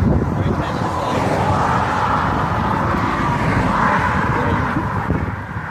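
Road traffic, cars passing by, over a low rumble of wind on the microphone; the traffic hiss swells twice as vehicles go past.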